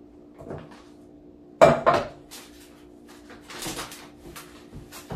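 Pots and dishes being handled on a kitchen counter: two sharp clanks about a second and a half in, then lighter knocks and a brief rustle.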